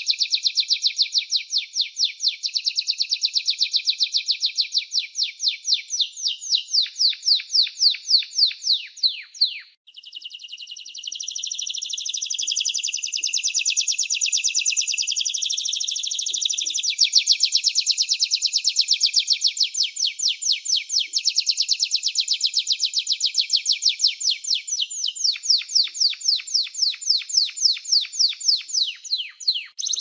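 Domestic canary singing a long continuous song in fast runs of repeated high notes. About ten seconds in there is a brief break, then a smoother rolling trill, and it returns to rapid repeated notes around seventeen seconds in.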